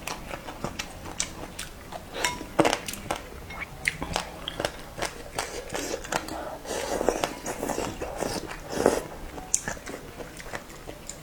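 A person eating noodles close to the microphone: chewing and biting, with many short clicks and smacks of the mouth.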